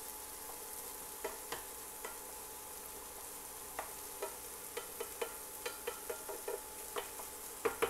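Diced tomato, onion and jalapeño sizzling steadily in a nonstick frying pan, with a wooden spatula scraping and tapping against the pan as it stirs. The spatula strokes are sparse at first and come more often in the second half.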